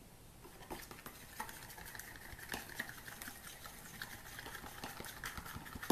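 A utensil beating a whole raw egg into a runny mix of mashed banana and honey in a bowl. Quick, irregular clicks and taps against the bowl start about a second in.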